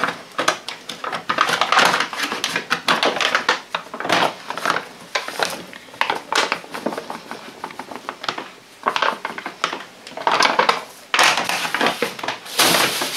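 A paper flour bag crinkling and rustling as it is torn open and tipped, with flour poured out of it into an enamel bowl of batter. The handling gives many small clicks and several louder rustles, one of them near the end.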